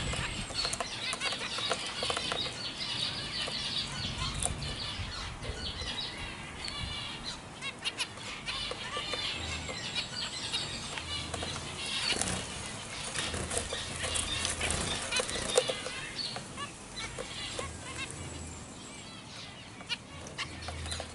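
A group of young white zebra finches calling continuously, a dense chatter of many short, quick calls, with wings fluttering now and then.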